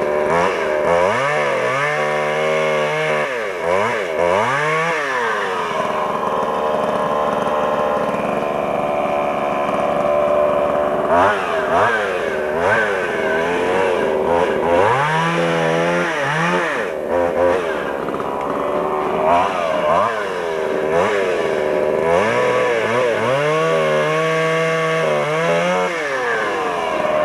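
Two-stroke chainsaw running and revving up and down, its engine pitch dipping and climbing again several times.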